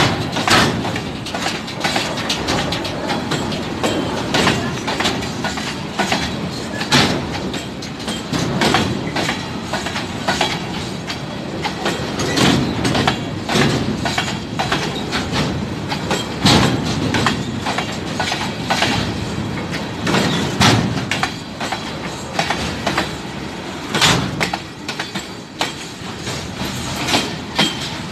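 Freight train of covered hopper wagons rolling slowly past at close range: a steady wheel rumble with many irregular sharp clicks and knocks from the wheels on the rails.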